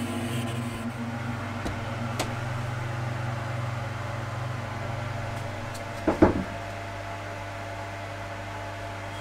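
Steady electrical hum of a running powder-coating curing oven, with two sharp knocks in quick succession about six seconds in, as the hanging frame inside is handled.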